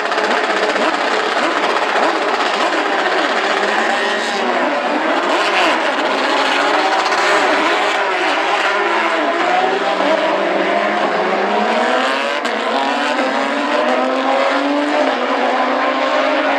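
Several Porsche 911 GT3 Cup race cars' flat-six engines going through a corner, their engine notes dipping and rising over and over as they change gear. From about ten seconds in, one long rising note as a car accelerates away.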